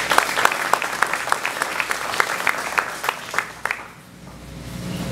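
Audience applauding, a round of hand claps that thins out and dies away about four seconds in.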